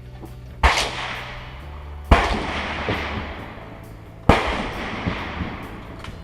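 Three .22 LR rifle shots, about a second and a half to two seconds apart, each followed by a long echo, with a fourth shot right at the end. Background music plays underneath.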